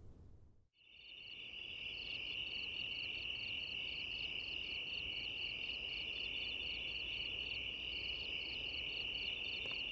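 Insects chirping: a steady high trill with a rhythmic chirp about three times a second over it. It starts after a brief silence just under a second in and cuts off suddenly near the end.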